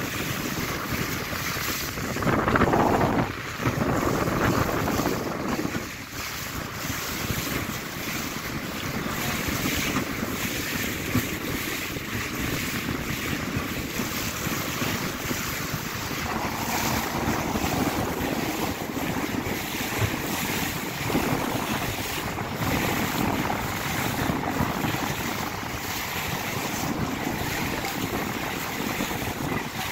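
Wind buffeting the microphone over water washing and splashing along a small boat under way, louder for a few seconds near the start.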